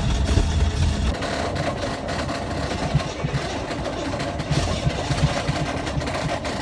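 Buick Riviera engine cranking over on the starter without catching. The cranking is slow and dragging, with an uneven chug, as the battery runs down.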